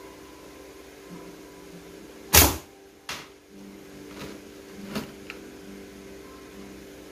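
A handmade lychee-wood slingshot with flat rubber bands shot once: a single sharp crack about two seconds in, followed by three much fainter knocks over the next few seconds.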